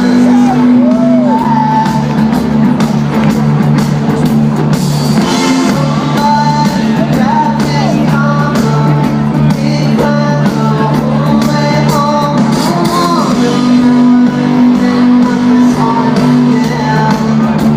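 Live rock band playing loud through a concert sound system: a steady droning low bass and keyboard line under wavering, bending guitar or vocal lines, with some singing.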